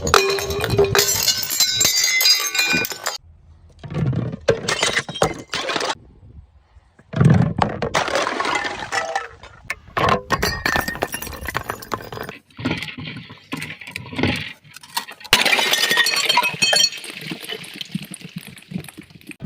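Glass bottles shattering one after another, each crash followed by the clinking of broken shards. There are about five separate smashes, each starting and stopping abruptly, with short quiet gaps between them.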